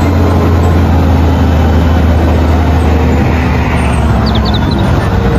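Eight-wheel tipper truck's diesel engine running with a steady low drone while its hydraulic tipper body is raised. The strongest part of the drone eases off about three seconds in.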